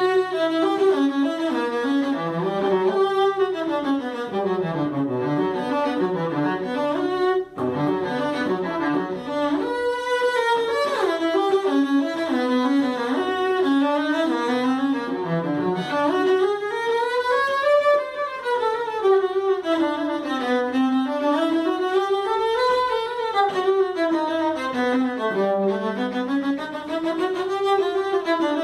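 Solo acoustic cello played with the bow: continuous flowing passages of notes that climb and fall in wave-like runs, with a momentary break about seven and a half seconds in.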